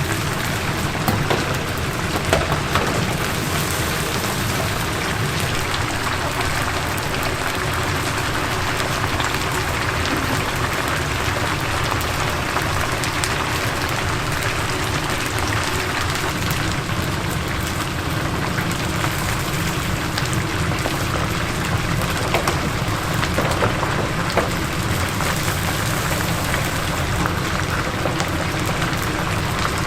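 Chicken pieces deep-frying in hot oil: a steady sizzle full of tiny crackles, with an occasional louder pop.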